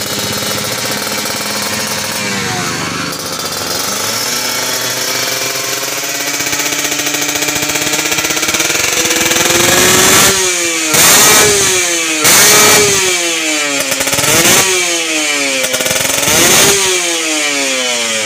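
Kawasaki Ninja RR 150 single-cylinder two-stroke engine running fast through an aftermarket racing exhaust, its pitch slowly climbing. From about ten seconds in it is blipped hard several times, each rev shooting up and dropping back, as the bike is tuned.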